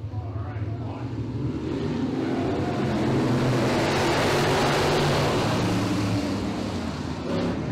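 A pack of dirt-track modified race cars running hard past the listener. The engines grow louder to a peak about four seconds in as the cars pass close by, then fade as they pull away.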